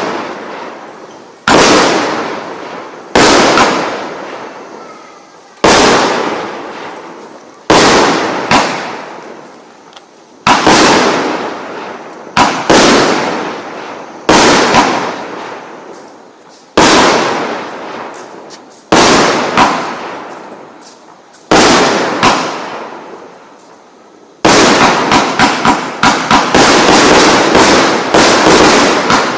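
A 49-shot, 1.2-inch consumer firework cake battery firing: a sharp loud burst about every two seconds, each trailing off over a second or two. Near the end the shots come in a rapid run, several a second, as the finale.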